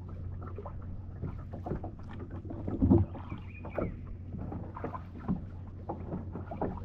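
Kayak paddling: the paddle blades dip and splash in irregular strokes, with water dripping and light knocks, and one louder thump about three seconds in.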